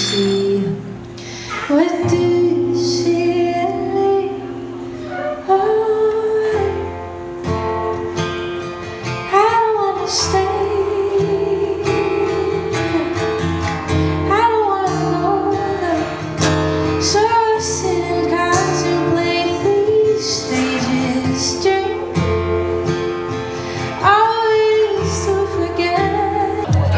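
A woman singing a song over instrumental accompaniment, with sustained low notes under the melody.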